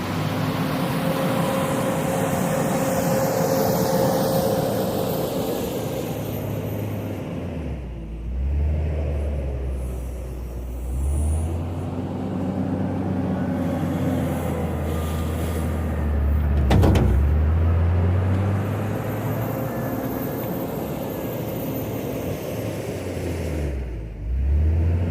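JCB 426ZX wheel loader's diesel engine working under load, revving up and dropping back several times as it digs and lifts gravel. A single sharp knock comes about two-thirds of the way through.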